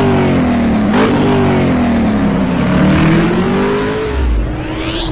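Engine revving sound effect: a few quick rev blips, each rising sharply in pitch and falling away, then a longer, slower climb in revs. Near the end comes a low thud and a rising whoosh.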